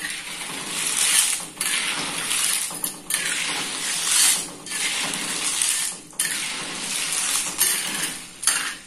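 Stirring a pot of curry broth with snails in it: liquid swishing and sloshing in repeated strokes with short pauses between them.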